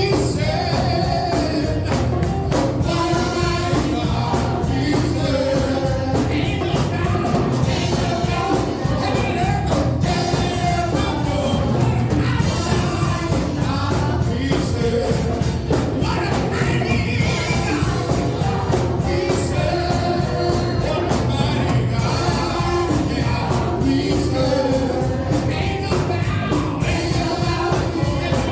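Live gospel worship music: singers and a choir over a band with drums and a steady beat.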